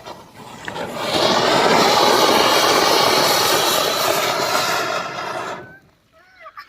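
A ground fountain firework (flowerpot) that has just been lit, hissing steadily as it sprays sparks. The hiss builds over about a second, holds for about four seconds, then dies away. A few bird chirps follow near the end.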